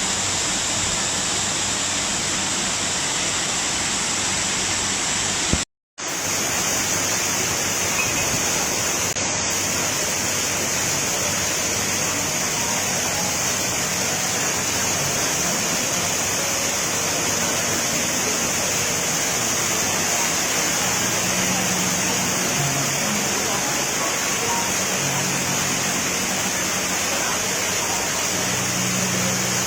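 Waterfall and cascades rushing: a loud, steady roar of falling water. The sound cuts out for a split second about six seconds in.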